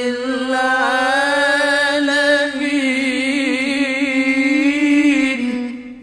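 A male qari's voice in melodic Qur'an recitation, drawing out one long note with wavering melismatic ornaments, tailing off near the end.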